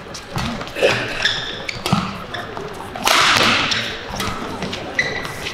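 A badminton rally: rackets strike the shuttlecock in sharp cracks about half a second apart, with short high squeaks from shoes on the court. About three seconds in, an overhead smash is followed by a burst of crowd cheering, the loudest sound here.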